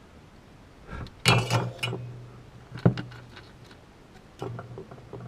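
Small knocks and clicks from handling a circuit board and a TO-220 voltage regulator on a workbench while the regulator is set straight. There is a louder knock about a second in and another near three seconds.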